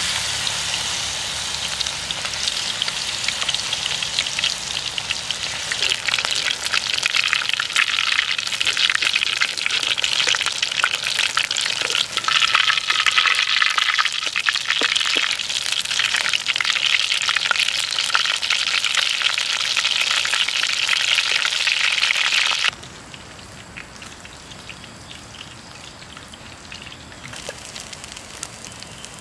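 Peyek batter with small wader fish deep-frying in hot oil in a black pan: a dense, crackling sizzle that drops suddenly to a much quieter sizzle with about six seconds left.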